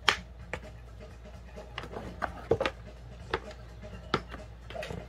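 A kitten moving about inside a cardboard box, its claws and body making a string of sharp scratches and knocks on the cardboard. The sharpest comes right at the start, with a cluster about halfway through and one more near the end.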